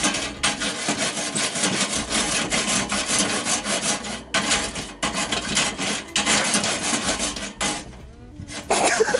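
Wire brush scrubbing a barbecue's metal grill grate: fast back-and-forth rasping strokes across the bars, with a few brief pauses and a longer lull near the end.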